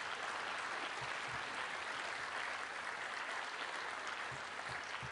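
Audience applauding, a steady patter of clapping that eases off near the end.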